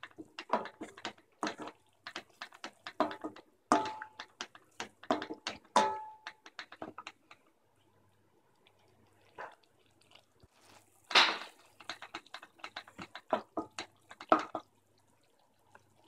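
Wooden spatula stirring thick, simmering tomato sauce in a steel pan: a run of irregular wet clicks, scrapes and plops, with a few knocks that ring briefly off the pan. The stirring pauses for about two seconds halfway through.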